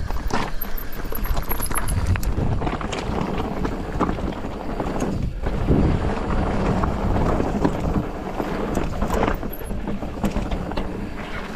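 Polygon Siskiu T8 mountain bike rolling down a steep, loose trail: tyres crunching over gravel and rock, with irregular knocks and rattles from the bike as it hits rocks. Wind buffets the microphone.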